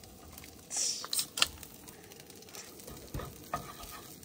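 Rice frying in a skillet on a camp stove, with a low sizzle and a wooden spoon stirring and knocking against the pan a few times; a brief, brighter hiss about a second in.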